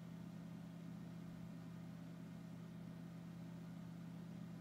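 A steady low hum with a faint even hiss above it, unchanging throughout: background room tone.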